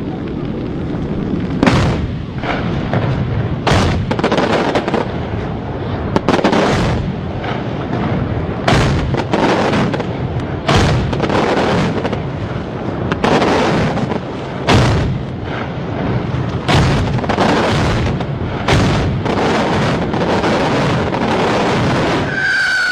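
Fireworks going off in a continuous dense crackle and rumble, with loud sharp bangs about every one to two seconds.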